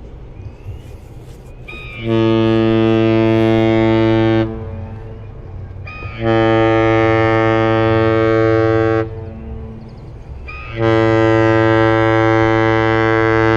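Cruise ship horn sounding three long, deep, steady blasts, each a few seconds long with short gaps between. The third blast is still sounding at the end.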